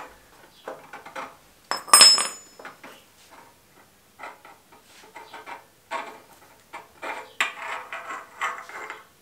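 Metal exhaust pipe being handled and fed in against the engine's metal parts, clinking and rattling irregularly. There is one loud ringing clank about two seconds in.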